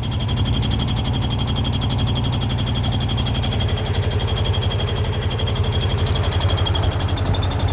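Washing machine running with a steady low rumble and a fast, even rattling pulse, a steady high-pitched whine above it.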